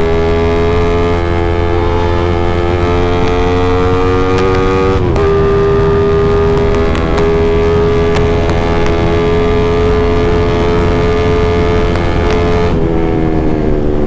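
Yamaha MX King single-cylinder four-stroke engine, bored up to 170 cc, running hard under full throttle, its note climbing slowly. The note breaks and dips briefly about five seconds in, then climbs again, and near the end it falls as the revs come down. A steady rush of wind sits under it.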